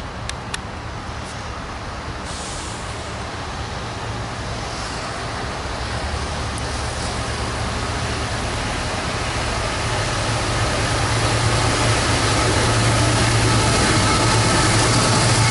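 CSX freight train's diesel locomotives approaching: a low, steady engine drone, with the rumble of the train growing steadily louder as it nears.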